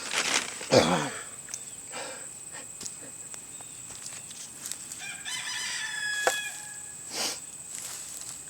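A rooster crowing once, a drawn-out call of about a second and a half, starting about five seconds in.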